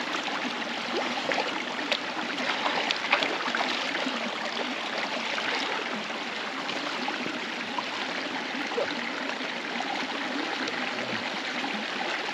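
A stream running, a steady rush of water with no let-up.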